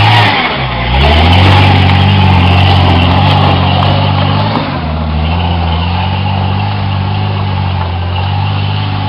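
1987 AMC Cherokee's engine running hard under load on a slick climb. The revs dip briefly and come back up about a second in, then hold high and steady.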